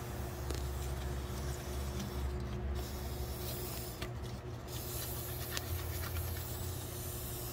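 Krown aerosol can spraying its oily rust inhibitor in long hissing bursts, with brief breaks about two and four seconds in. A steady low hum runs underneath.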